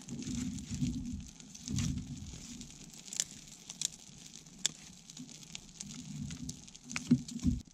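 Newly lit wood campfire catching and crackling, with sharp pops scattered through a steady hiss. Low rumbling swells come and go underneath.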